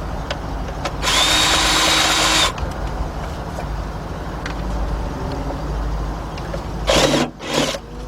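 Cordless power gun spinning out ignition coil hold-down bolts: one steady whining run of about a second and a half, then two short bursts near the end.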